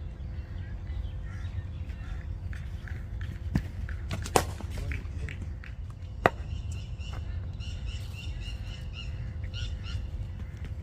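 A cricket bat striking the ball: a fainter knock, then two sharp cracks about two seconds apart, over a steady low rumble. Birds chirp rapidly in the later seconds.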